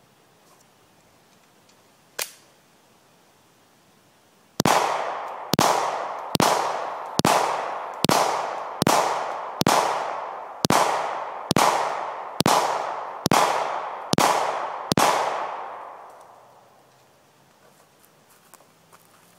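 Glock 23 .40 S&W pistol fired thirteen times in slow, even succession, a little under a shot a second, each shot followed by a ringing echo that fades. A single sharp click comes about two seconds in, before the string.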